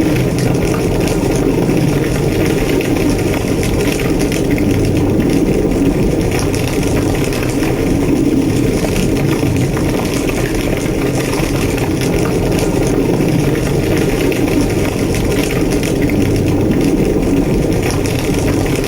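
A large building fire burning, heard from inside the burning structure: a steady low roar of flames with dense crackling and popping.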